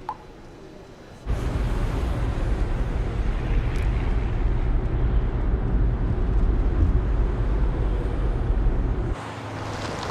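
A car driving: a steady low engine and road rumble that starts abruptly about a second in and drops off sharply near the end.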